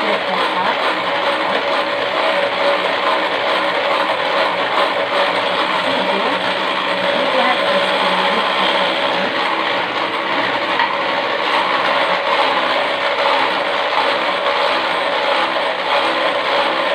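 Electric hand mixer running at a constant speed, its beaters whipping eggs in a glass bowl: a steady whir with an even hum.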